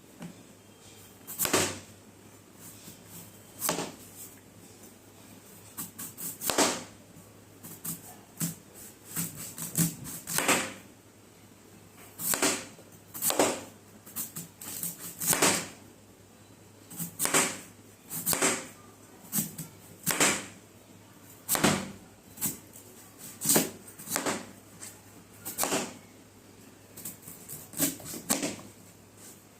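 Knife cutting through firm guava fruit: a series of short, sharp cuts, irregularly spaced at roughly one or two a second, some in quick clusters.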